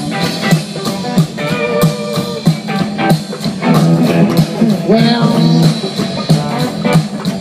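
Blues-rock song with electric guitar and a steady beat, an instrumental passage between sung lines.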